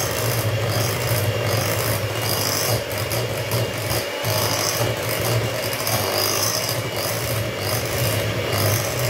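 Moulinex electric hand mixer running steadily at one speed, its twin wire beaters churning flour and milk into cake batter. There is a steady motor hum and whine, with a brief dip about four seconds in.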